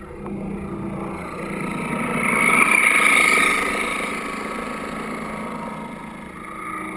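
Electric drive motor and twin propellers of a 24-inch Dumas Shelly Foss model tugboat running, heard underwater through a GoPro's waterproof housing. A steady whine that swells about two to three seconds in and then eases off.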